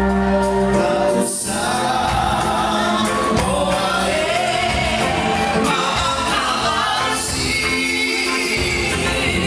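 Live music with voices singing together; a held chord breaks off briefly about a second in before the music and singing carry on.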